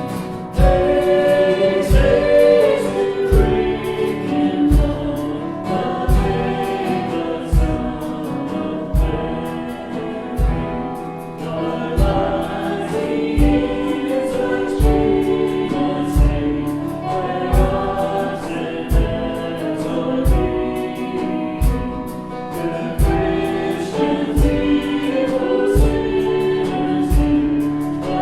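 Contemporary Christian worship song with singing voices over a band and a steady drum beat.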